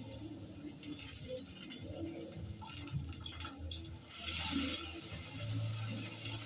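Steady watery hiss in a kitchen, getting louder about four seconds in, with a few light clicks.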